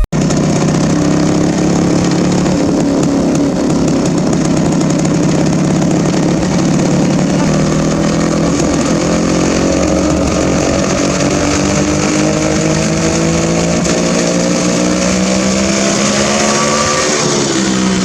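1980 Yezdi D250 Classic's single-cylinder two-stroke engine running, its speed creeping up slowly and then dropping just before the end.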